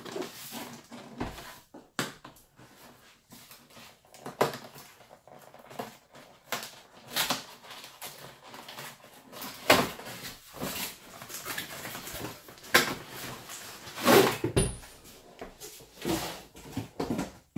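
Cardboard packaging being handled while a hard plastic tool case is worked out of its box: irregular rustling, scraping and clicking, with several sharper knocks of the plastic case, the loudest in the second half.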